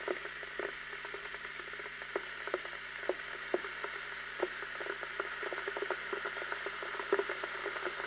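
Electric 2-litre kitchen kettle heating water: a steady hiss with irregular small pops and ticks that come more often near the end.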